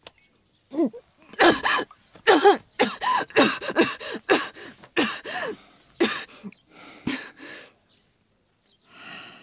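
A woman coughing in a long fit of rapid, harsh coughs, as if choking on a drink. It eases off after about seven seconds, and a softer breath follows near the end.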